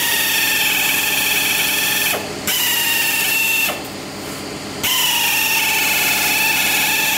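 Pneumatic double-cut sheet-metal shear cutting through a metal sheet: a steady high whine over air hiss. It stops about two seconds in, runs again for about a second, pauses, and starts up once more around five seconds in.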